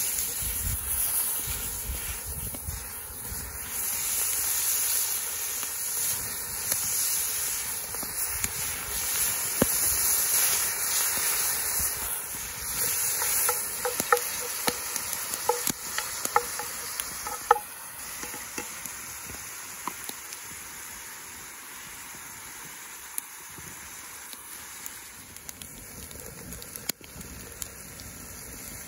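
Caribou meat sizzling as it fries in hot butter in a cast iron Dutch oven, loudest over the first dozen seconds and then dying down. A wooden spoon knocks against the pot several times around the middle as the meat is stirred.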